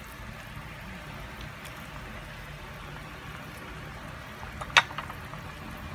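Pot of sinigang sa miso (fish and miso sour soup) boiling, with a steady bubbling hiss, and one sharp knock about five seconds in.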